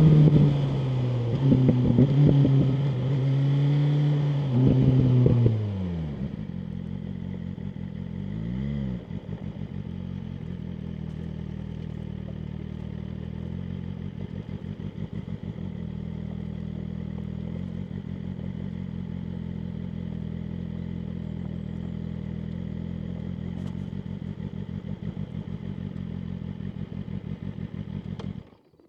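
BMW M1000R Competition's inline-four engine, its revs falling and rising for the first few seconds, then dropping to idle. One short throttle blip follows, then a steady idle until the engine is switched off just before the end.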